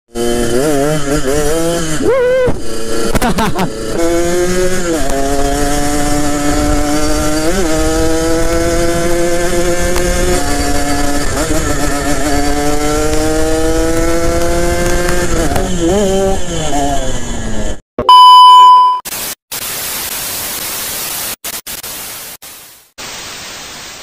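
Yamaha RX-King's two-stroke single-cylinder engine breathing through a home-made racing exhaust while riding, blipped up and down a few times, then pulling through long steady rises before the throttle closes. It cuts off suddenly, followed by a loud electronic beep and a hiss of static that fades away.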